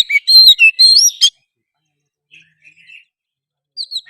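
Oriental magpie-robin (kacer) singing in full voice: a fast run of varied whistled notes and short glides for just over a second, a pause with a few faint notes, then another phrase starting near the end.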